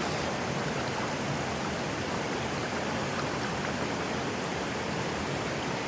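Steady rush of flowing river water, an even noisy wash with no distinct splashes or knocks.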